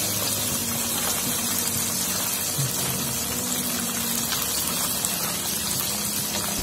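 Oat-coated tilapia fillet pieces deep-frying in a wok of hot oil: a steady sizzle of bubbling oil.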